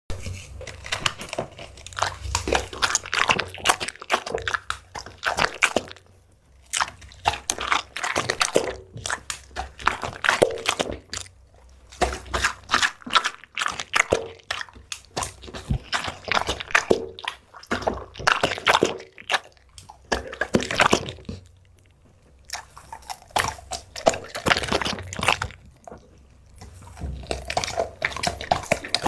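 A pet chewing and crunching seafood: runs of wet, crisp bites and chews lasting a few seconds each, broken by short pauses.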